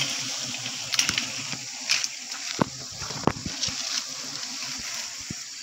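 Hissing rustle of leafy brush and branches being pushed through, with several sharp twig snaps.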